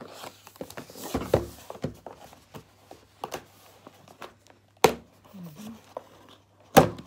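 Kitchen knife slitting the tape on a cardboard box, with cardboard scraping and rustling as the box is handled and turned, and two sharp knocks near the end.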